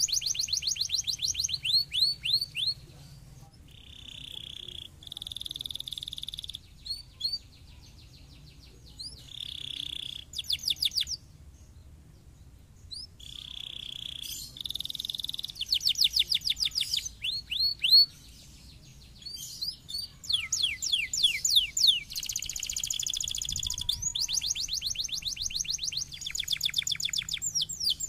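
Domestic canary singing: fast series of sweeping chirps alternating with rolled, buzzing trills, broken by short pauses.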